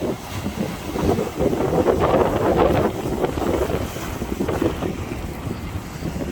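Ocean waves washing against rocks, swelling and falling, with heavy wind buffeting the microphone.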